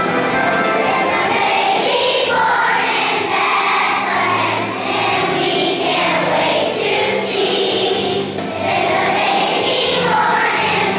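A large choir of young children singing together over an instrumental accompaniment. The voices come in about two seconds in.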